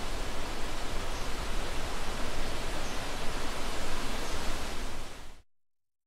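Forest stream water flowing in a steady, even rush that fades out about five seconds in.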